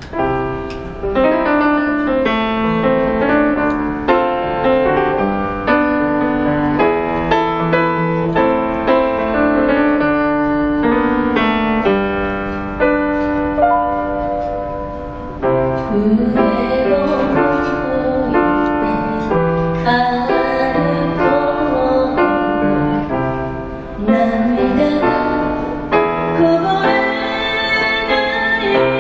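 Piano playing a song's introduction; about halfway through, a voice starts singing the melody over the piano accompaniment.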